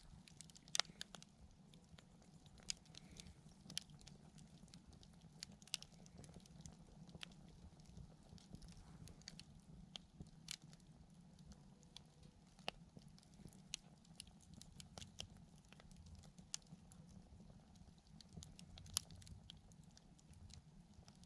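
Wood campfire crackling quietly, with sharp irregular pops and snaps from the burning wood, the loudest about a second in and again near the end, over a faint steady low background.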